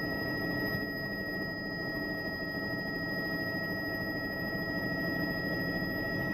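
Helicopter running in flight as it climbs after take-off, heard from inside the cabin: a steady high-pitched whine over a low, even drone of engine and rotor.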